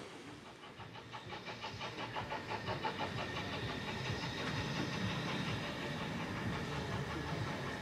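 Peckett 0-4-0ST saddle-tank steam locomotive approaching in the distance, its sound growing louder over the first few seconds and then holding steady.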